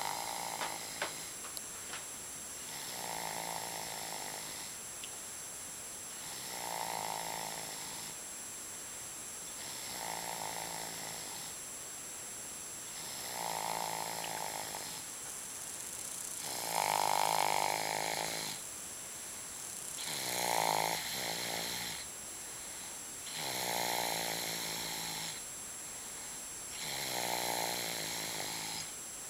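Loud snoring in a slow, even rhythm: eight long, buzzing snores, one about every three and a half seconds, the loudest just past the middle.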